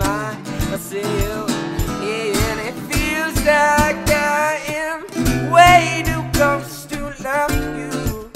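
A male voice sings wordless vocal runs over a strummed acoustic guitar, with a steady added drum beat thumping underneath about twice a second.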